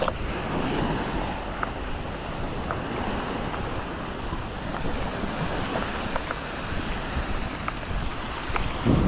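Wind buffeting the microphone over the sound of lake waves washing in, a steady rough noise with a few faint ticks.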